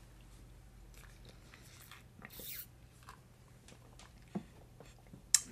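Quiet, close mouth sounds of a person chewing food, with scattered small wet clicks, a brief hiss about two and a half seconds in, and one sharp click near the end.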